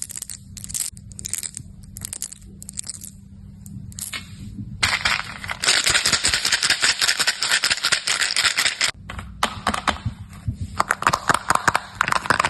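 Candy packaging being handled and opened: short bursts of crinkling and rustling, then a dense stretch of crackling a few seconds in, then quick crinkly clicks near the end.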